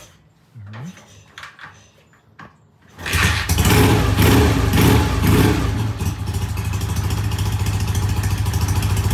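BSA A65 Lightning 650 cc parallel-twin engine kick-started: about three seconds in it fires, revs up a few times, and then settles into a steady, even idle. This is the first start after a new head gasket and a fresh carb and timing set-up, and the engine sounds good.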